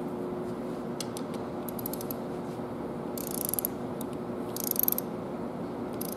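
Ratchet wrench clicking as an injector hold-down screw is tightened, pulling the injector down into its seat. A few light clicks come first, then two short bursts of rapid ratcheting about three and four and a half seconds in, over a steady low hum.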